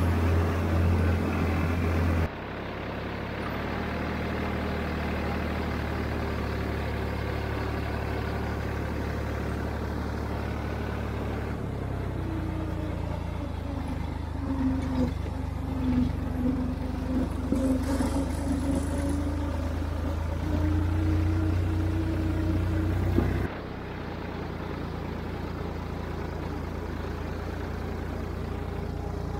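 Farm tractor engine running steadily while driving up a rough dirt track, heard from on board. The engine note wavers up and down in the middle, and the sound changes abruptly twice at cuts, once about two seconds in and once near the end.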